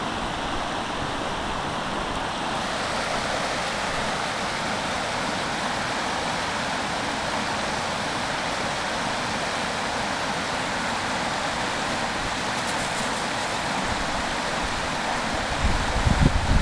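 Shallow rocky creek rushing over stones in a steady rush of water, growing brighter a couple of seconds in. A few low rumbling bumps come near the end.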